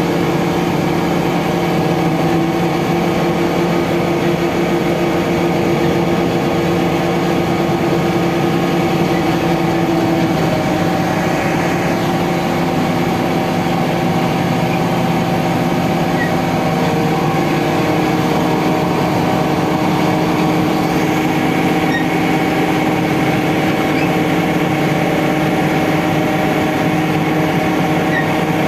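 Mobile truck crane's diesel engine running steadily, its tone shifting slightly in pitch about ten seconds in and again a few seconds later.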